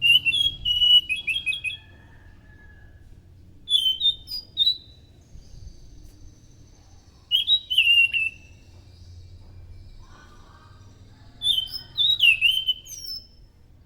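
Anis macan thrush singing: four short bursts of quick whistled notes, about three to four seconds apart, with sharp high clicks mixed into each phrase.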